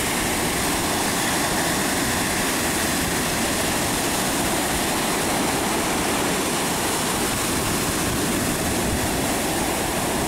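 Ocean surf breaking and washing in a steady, unbroken rush.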